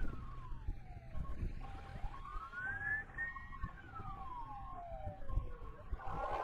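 Emergency-vehicle siren in a slow wail, gliding up and falling back about every three seconds, over a low rumble. Near the end a louder rush of noise comes in.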